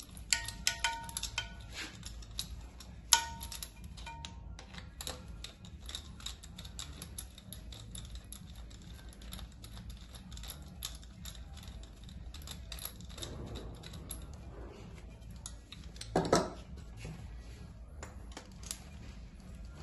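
Rapid light metallic clicks and clinks, some ringing briefly, from a compression tester's hose fitting and tools being handled and threaded into a glow-plug hole in a diesel cylinder head. A louder knock sounds about 16 seconds in.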